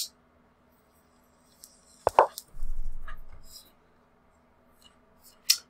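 A short wooden knock about two seconds in: the lichess move sound as the opponent's bishop lands on e4. It is followed by about a second of low rumble and, near the end, a brief hiss.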